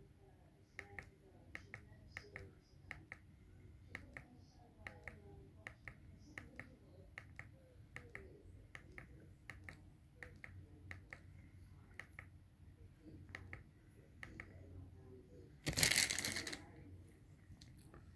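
Small plastic remote-control buttons clicking, pressed over and over at about one to two clicks a second, as the soundbar's settings are stepped through. About sixteen seconds in comes a single loud rushing noise lasting about a second.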